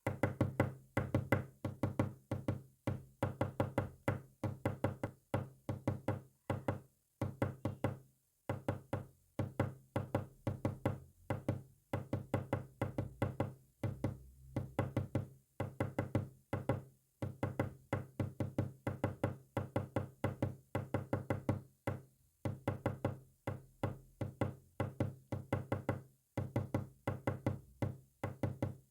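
Morse code sent as a long run of short, low-pitched pulses. They come in quick groups of several, with brief pauses between the groups.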